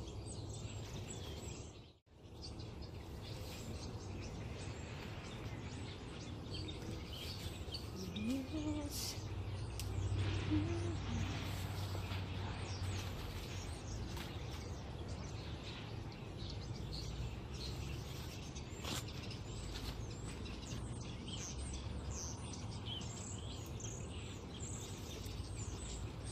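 Outdoor ambience: small birds chirping on and off over a steady low rumble, with a brief dropout in the sound about two seconds in.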